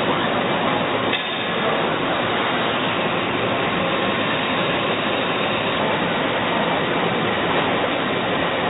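Doosan Puma ST20G CNC lathe running: a steady, even mechanical noise with a faint steady whine in it.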